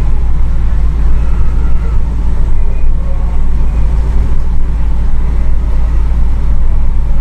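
Steady, loud low rumble of a moving microbus, engine and road noise heard from inside the cabin.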